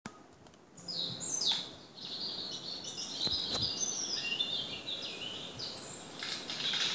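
Several birds chirping and trilling in quick, overlapping calls, played from a television's forest soundtrack. Two soft knocks come about halfway through.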